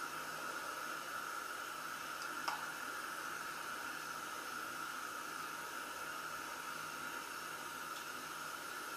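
Steady hiss of background noise, with one light click about two and a half seconds in.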